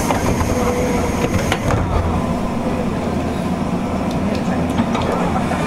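JR West 201 series armature-chopper-controlled electric train running between stations, heard from inside the car: a steady rumble of wheels and running gear with a few light clicks.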